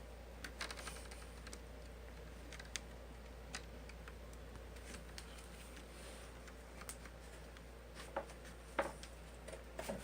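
Scattered small plastic clicks and snaps as a laptop's plastic screen bezel is pried loose, its clips letting go, with the sharpest snaps near the end. A faint low hum runs underneath.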